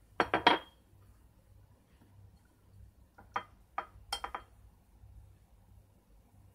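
Glass and dishware clinks: a thick drinking glass knocked down onto a marble counter in a quick cluster of three or four sharp knocks just after the start, then a few lighter clinks between about three and four and a half seconds in as a spoon scoops grated-apple filling from a china plate.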